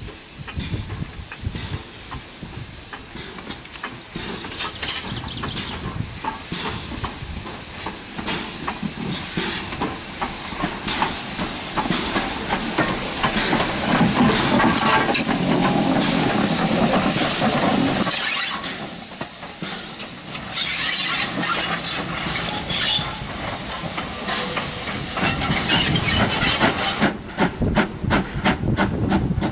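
Steam hissing from a British Railways Ivatt class 2MT 2-6-2 tank locomotive as it passes close by. The hiss grows loud, cuts off suddenly about two thirds of the way in, starts again shortly after and stops near the end, leaving a run of quick clicks.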